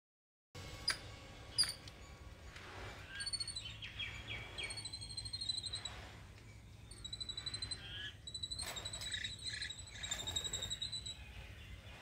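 Birds calling: several runs of rapid, high, thin notes, with some lower, harsher calls between them.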